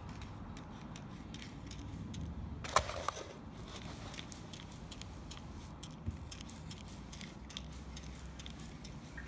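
Granite sealer being sprayed from a trigger spray bottle onto a countertop: scattered light clicks and handling noises over a low steady hum, with one louder short spray-like rush about three seconds in.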